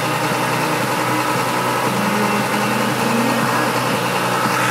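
Vehicle engine running steadily under a constant rushing noise, heard from inside the cab while driving.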